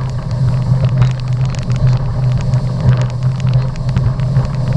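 Motorboat engine running steadily at speed, a loud constant drone with many short knocks and buffets over it.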